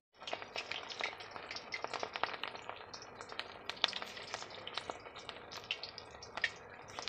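Cornflour-coated beef strips deep-frying in hot oil: a steady sizzle dotted with many sharp crackling pops.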